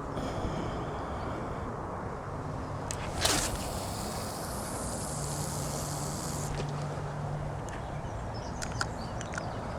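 A carp rod being cast: a sharp swish about three seconds in, then the hiss of line running off the reel for about three seconds. A few light clicks follow near the end, over a steady low hum.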